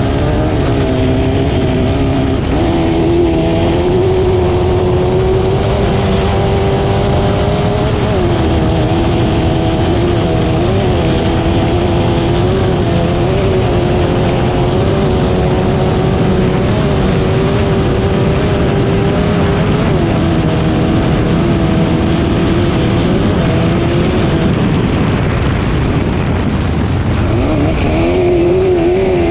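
Racing engine running hard at high revs through a qualifying run, a steady high-pitched note that briefly dips and recovers in pitch several times as the throttle eases and opens again. The note thins out for a couple of seconds near the end, then comes back strongly.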